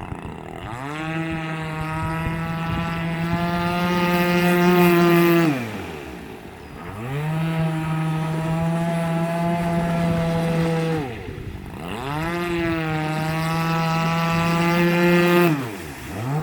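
Warrior 26cc RC boat's two-stroke gas engine run at a steady high pitch three times, throttled back in between so the note slides down and climbs again.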